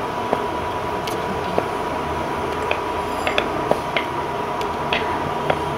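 Wooden rolling pin rolling out soft luchi dough on a wooden board, with scattered light clicks and knocks of the pin against the board, over a steady background hiss and a faint steady hum.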